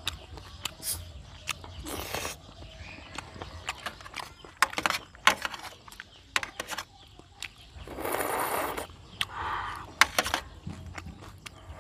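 Close-miked eating sounds from meat curry eaten by hand: many sharp wet clicks and lip smacks from chewing, with a few short, louder rustling bursts, one about two seconds in and two more around eight to ten seconds.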